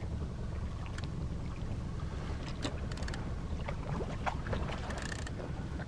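Small boat's outboard motor running at trolling speed with a steady low rumble, with water lapping against the hull and a few small clicks and splashes about midway.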